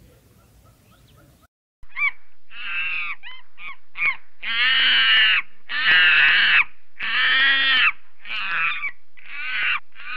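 An animal calling loudly and repeatedly: about nine calls in a row starting about two seconds in, some short and some held for about a second.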